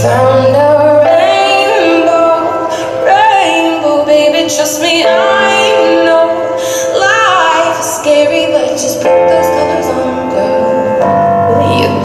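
Figure skating program music: a woman singing with wavering, vibrato-laden notes over sustained instrumental accompaniment.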